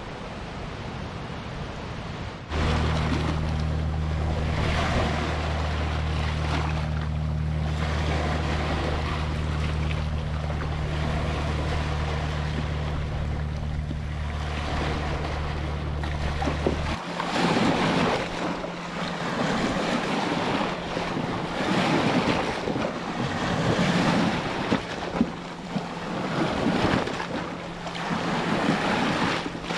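Ocean surf: waves washing in with a continuous hiss, joined by a steady low hum a couple of seconds in that stops about halfway through. After the hum stops, the waves come through in repeated swelling surges.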